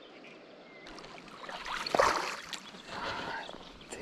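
Water splashing and rustling handling noise around a fly rod and reel, with a sharp knock about two seconds in.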